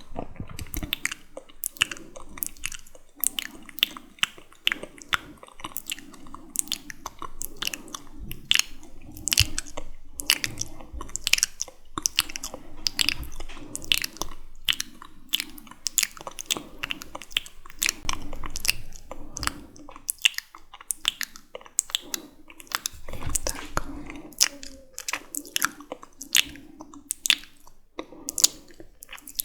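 Close-miked wet mouth sounds for ASMR: sticky, irregular clicks and smacks of lips and tongue, several a second.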